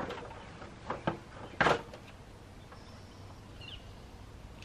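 A few light knocks and a short scrape as a white plastic Norcold refrigerator vent panel is handled and offered up to its opening in a camper wall, the loudest scrape coming a little under two seconds in.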